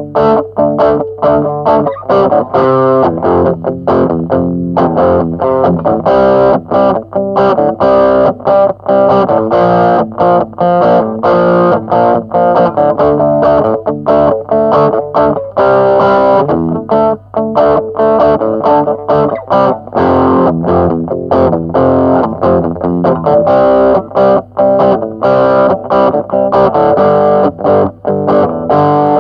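Electric guitar, a Jackson JS22, played through the overdrive channel of a Joyo MA10E practice amp with no effects pedals. It plays a continuous run of distorted picked notes and chords.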